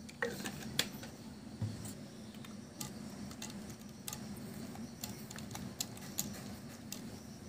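Spoon stirring an iced drink in a tall glass: ice cubes and the spoon clink against the glass in light, irregular clicks.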